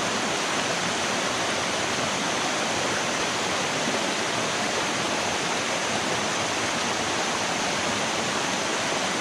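Water rushing steadily down the rock cascades of a waterfall, close to the microphone.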